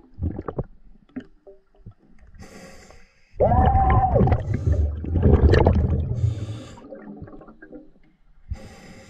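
A diver breathing through a snorkel, heard underwater: short hissing inhales and two loud gurgling, bubbling exhales, the first with a steady hum-like tone.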